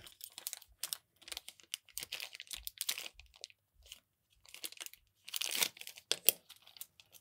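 Small clear plastic parts bags crinkling as they are handled and opened, in irregular crackles, with a denser stretch of rustling about five seconds in.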